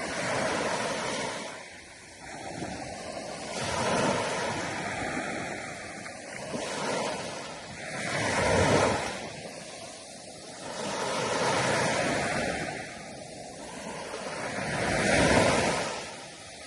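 Sea waves breaking and washing in, each surge swelling and fading, five times, about every three to four seconds.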